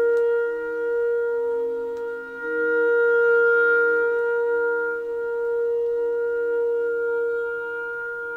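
Instrumental music played from a vinyl record through hi-fi loudspeakers and picked up in the room: a steady held tone over a slow line of lower notes that change about once a second.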